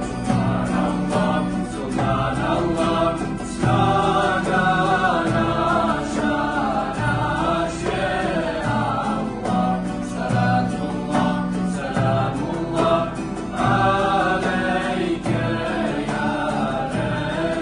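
Choir and female soloist singing a Bosnian ilahija (devotional song) with a small live band of accordion, acoustic guitars, keyboard and hand drum.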